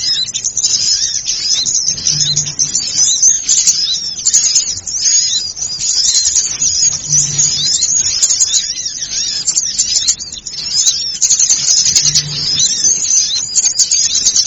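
Bird-lure recording of a noisy flock of small birds: many rapid, overlapping high-pitched chirps and twitters, dense and continuous.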